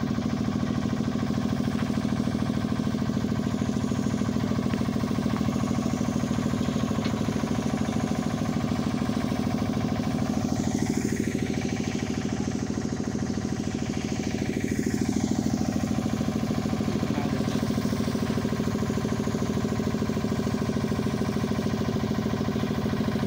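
Diesel engine of a tractor-mounted bitumen emulsion sprayer running steadily at constant speed, powering the hand-spray of a prime coat.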